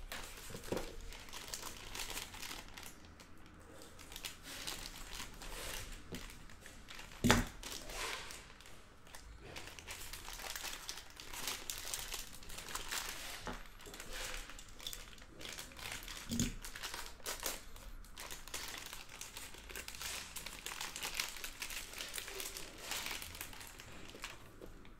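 Foil trading-card pack wrappers crinkling as they are handled and opened by hand. A sharp knock about seven seconds in, and a softer one near sixteen seconds.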